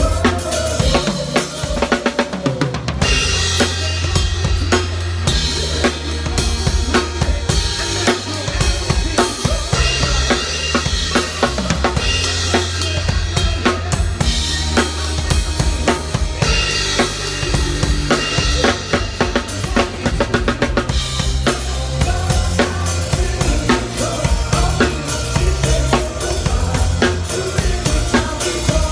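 Drum kit played to a pop song: a steady beat of kick drum and snare over the song's recorded bass and melody.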